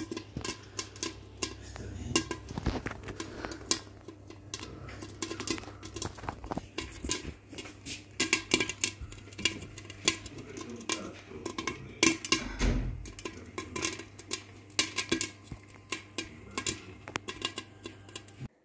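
Popcorn kernels popping in a glass-lidded pot on a stove: a rapid, irregular run of sharp pops over a steady low hum. It cuts off suddenly near the end.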